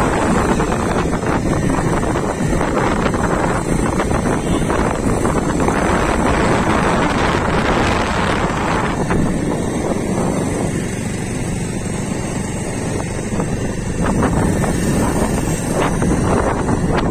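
Wind buffeting the microphone on a moving motorcycle, with the bike's running and road noise underneath as a steady rush. It eases a little midway, then picks up again.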